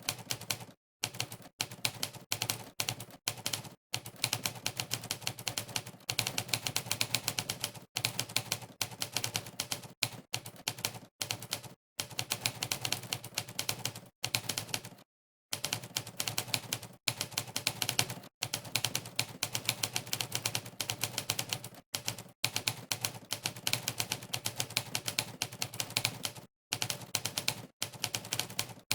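Typewriter key sound effects from a typing-test website, one for each keystroke: fast, uneven runs of clacks broken by short pauses, the longest about halfway through.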